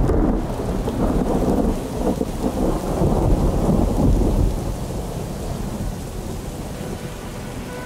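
Thunder rumbling over steady rain, loudest in the first half and slowly dying away.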